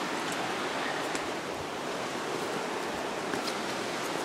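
Creek water rushing, a steady wash of noise, with a few faint ticks.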